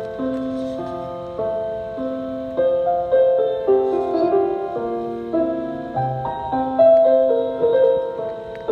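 Piano playing a slow passage of chords under a melody line, with no singing.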